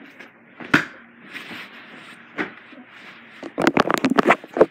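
Handling noise as the camera is picked up and moved: a single sharp knock about a second in and faint rustling, then a quick cluster of sharp knocks and rubs near the end.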